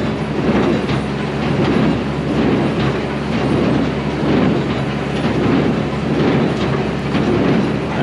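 Big square baler running under tractor power: a steady low engine drone under a busy mechanical clatter that swells and fades about once a second.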